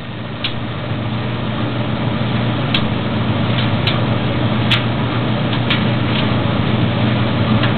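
Maytag DG608 gas dryer running: a steady hum from the drum motor and blower, with scattered light ticks every second or so.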